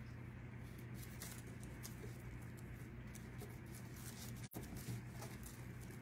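Faint rustling and small clicks of paper leaf embellishments being handled and pressed into place by fingers, over a steady low hum. The sound drops out for an instant about halfway through.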